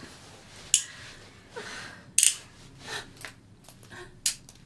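Three sharp clicks spread across a few seconds, with soft breathing between them.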